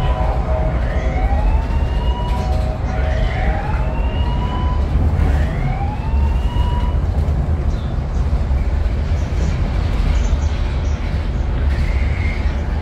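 Ocean Express funicular car running with a steady low rumble, heard from inside the carriage. Over it come four rising, whistle-like glides, about one every one and a half seconds, in the first half, and a fainter tone near the end.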